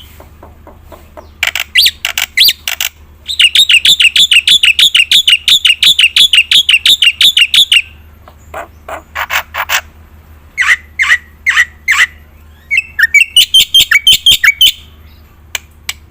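Black-winged starling (jalak putih) singing loudly in full song: short bursts of rapid repeated notes, a long fast trill of about four and a half seconds, then separate sharp chirps and another quick run of notes near the end.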